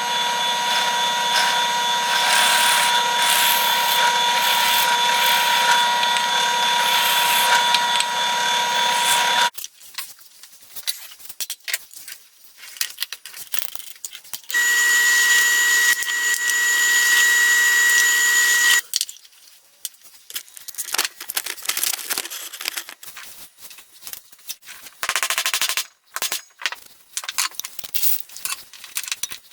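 A woodworking power tool running steadily for about nine seconds, then again for about four seconds at a higher pitch, with scattered knocks and clicks of handling between and after the runs.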